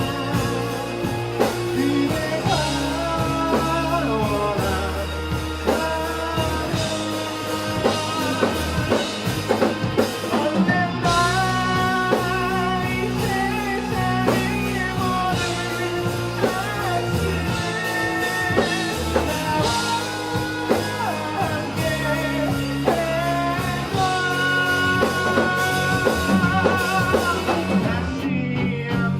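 Live rock band playing a chorus: a singer over two electric guitars, bass guitar and a drum kit.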